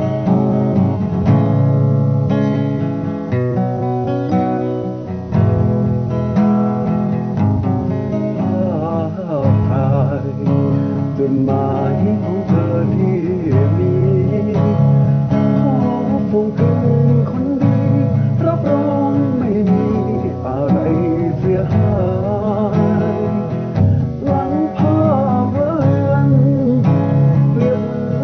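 Music: strummed acoustic guitar. A wavering, gliding melody line comes in over the strumming about eight seconds in.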